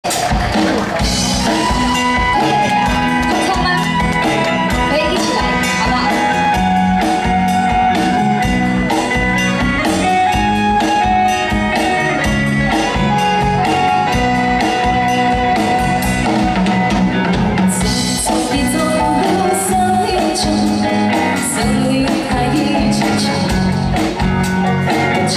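Live band music on a stage sound system: drum kit keeping a steady beat under guitar and sustained melody lines.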